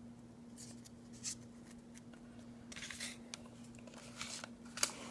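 Foil booster-pack wrapper crinkling and tearing, with trading cards being handled: several short rustles and clicks and a longer crinkle about three seconds in. A steady low electrical hum runs underneath.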